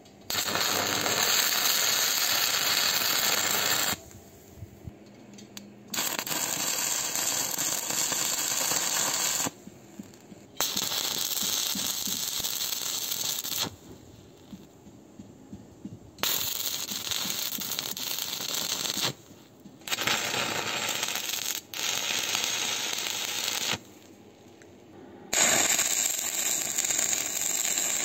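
Stick (MMA) arc welding with a DC inverter welder on steel angle iron and plate: the electrode arc crackles in about seven runs of two to four seconds each, with short pauses between welds.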